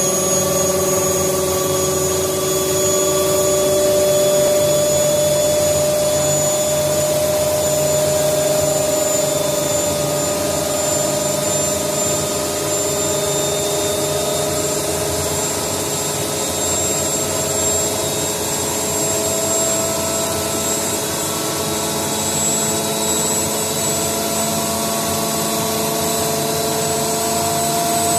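Indesit washing machine's motor running steadily with a whine that slowly creeps up in pitch.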